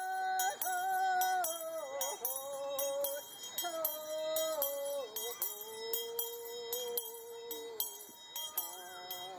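A woman singing an Indian Shaker song in long, held notes, accompanied by hand-shaken bells ringing in a steady rhythm.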